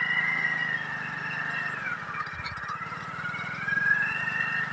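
A motorcycle engine running at low speed, with a higher whine that rises and falls slowly.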